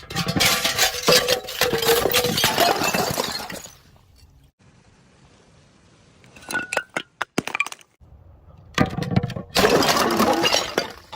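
Glass bottles shattering, with shards clinking and scattering: a long burst of breaking glass, a few separate clinks around the middle, then another burst of breaking near the end.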